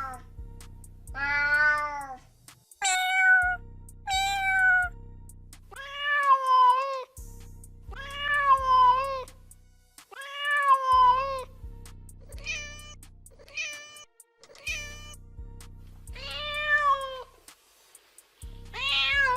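Domestic cat meowing repeatedly, about ten meows, some short and high and others long and drawn out, over background music.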